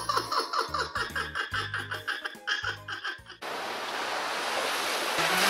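Bouncy cartoon background music with a steady beat, which gives way about three seconds in to a rushing noise that slowly grows louder.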